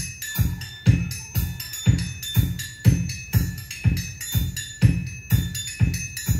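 Music with a steady, heavy bass-drum beat, about two beats a second, and bright pitched percussion on top, played through a Bose Solo 15 TV soundbar.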